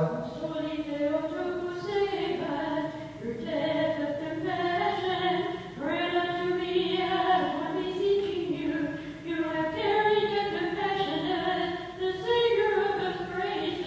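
Unaccompanied voices singing a Byzantine hymn, pitched higher than the male chanting on either side.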